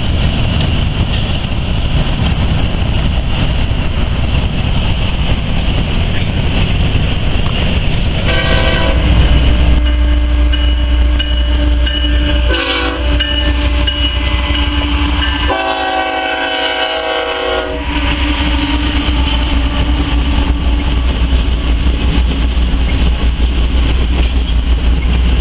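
BNSF diesel locomotives hauling a double-stack intermodal train pass close by with a steady rumble of engines and wheels on rail. Partway through, the locomotive air horn sounds three blasts: a medium one, a short one, then a longer one.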